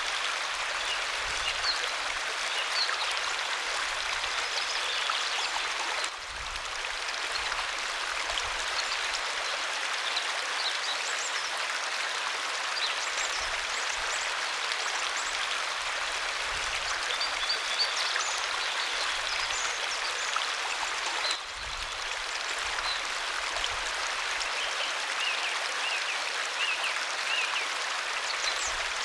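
Waterfall: a steady rushing hiss of falling, splashing water, briefly dipping in level twice.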